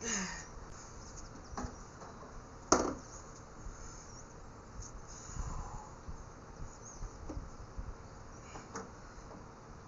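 Insects chirring steadily in the background, with a few short knocks; the loudest is a sharp knock a little under three seconds in.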